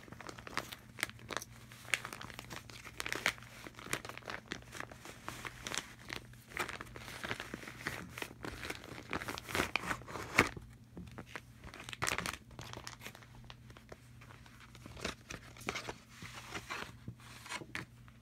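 Clear plastic packaging bag crinkling and rustling as hands handle it and slide a pack of boxer briefs out, with irregular sharp crackles that are busiest through the first two-thirds and thin out near the end.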